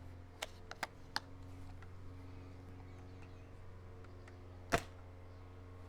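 A single shot from an SRS airsoft sniper rifle's high-powered HPA engine, regulated to 80 PSI: one short, sharp pop near the end. A few light mechanical clicks come in the first second.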